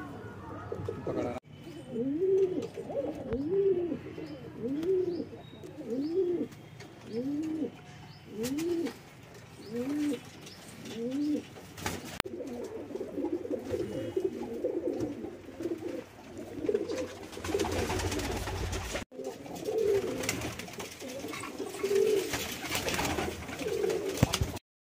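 Domestic pigeons cooing: a run of about nine low, rising-and-falling coos roughly one a second, then denser overlapping cooing.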